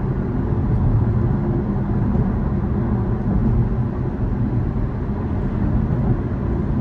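Steady low rumble of tyre and road noise inside the cabin of a moving Tesla Model 3, an electric car with no engine sound.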